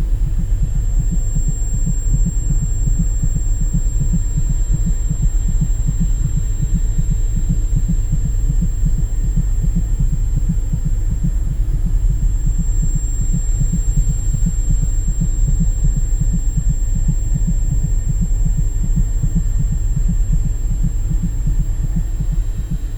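Sound-design heartbeat: fast, pounding low throbs under a thin, steady high-pitched ringing tone, the ear-ringing effect that follows a gunshot.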